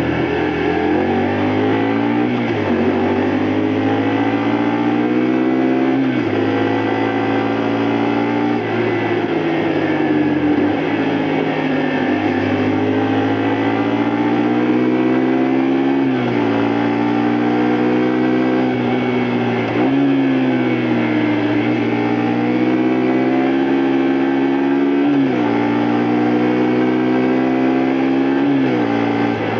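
Honda Varadero 125's small V-twin engine under way. Its pitch rises and falls with the throttle, with several abrupt changes as the rider shifts gear or rolls the throttle on and off.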